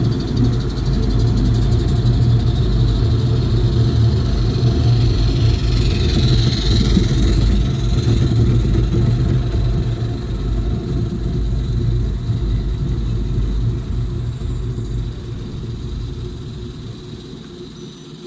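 Miniature live steam locomotive and its coaches running past close by: a steady low rumble of wheels on the rails that fades away near the end as the train moves off.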